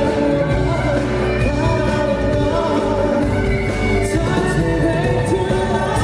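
Live pop-rock band performance with a lead vocalist singing over the band.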